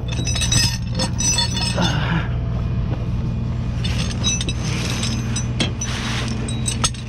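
Steel tow chain clinking and rattling as a hook on it is fitted under a wrecked car, in clusters about a second in and again around four to six seconds in, over the steady hum of an idling tow truck engine.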